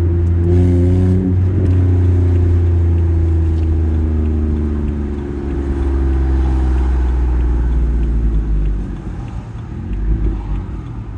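Vehicle engine running, a steady low note with an exhaust leak. It eases down slightly in pitch and turns quieter and unsteady near the end.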